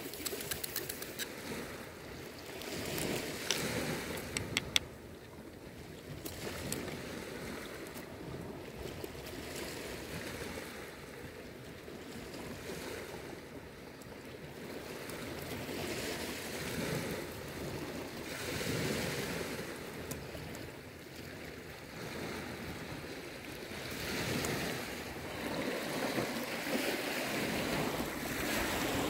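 Sea waves washing onto a pebble beach, swelling and easing every few seconds, with some wind noise. A few sharp ticks come in the first five seconds.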